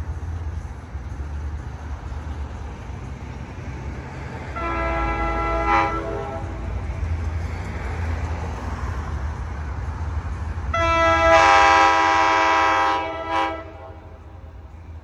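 NJ Transit commuter train's multi-tone horn sounding on approach. There is one blast about four and a half seconds in, then a longer, louder blast from about eleven seconds that ends with a brief short toot, over the train's low rumble.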